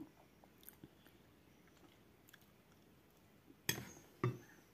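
Faint chewing of a mouthful of food, then two sharp clinks of a metal spoon against the plate, about half a second apart near the end.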